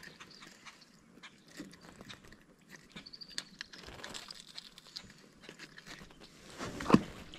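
Small clicks and crackling handling noises as a hooked bass is held by the lip and unhooked, with one louder knock near the end.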